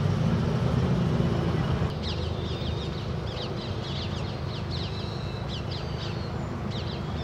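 A car engine running, louder for the first two seconds and then quieter. Over it a bird chatters in a quick series of high chirps for a few seconds in the middle.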